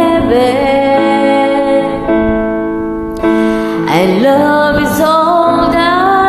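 A woman singing a slow song along to a karaoke backing track. Her voice bends through sustained notes, drops out briefly about three seconds in, and comes back in on a rising note.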